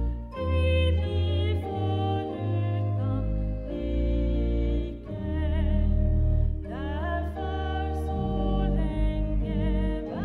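Church pipe organ playing a hymn: sustained chords that change about once a second over a steady bass.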